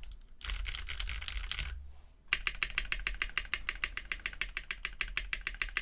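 Sangeo60 mechanical keyboard with Owlab Tungsten linear switches, aluminium plate and PBT keycaps being typed on. A fast, dense flurry of keystrokes, a short pause about two seconds in, then an even run of keystrokes at about eight a second.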